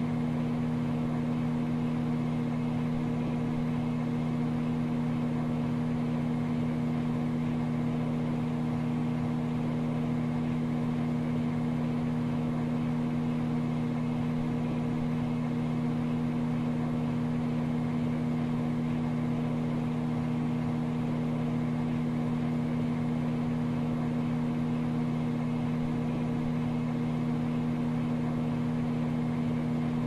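Microwave oven running with a steady, unchanging low hum.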